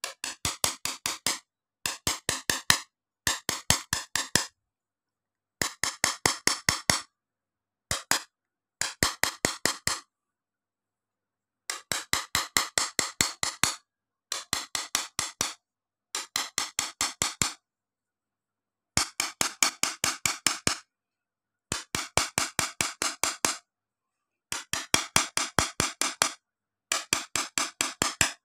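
Pointed engraving tool tapped rapidly on a sheet of glass, stipple engraving by hand: quick runs of sharp clicks, about six to eight a second, in bursts of one to two seconds with short pauses between.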